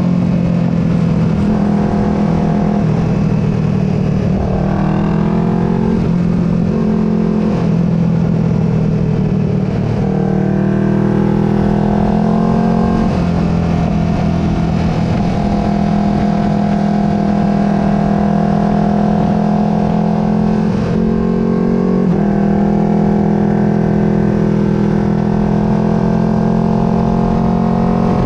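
Twin-cylinder race motorcycle engine running at a fairly steady speed, recorded onboard, with its pitch shifting and gliding a few times as the rider changes throttle and gears.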